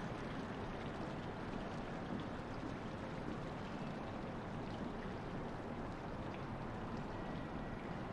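A steady, even rushing noise with no distinct events, like an outdoor ambience bed or the sound of running water.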